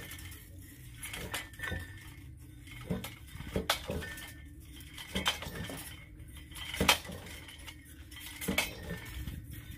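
Sharp metallic clinks and knocks, about one a second, from hand-boring a well: men working a drill pipe hung from a bamboo tripod.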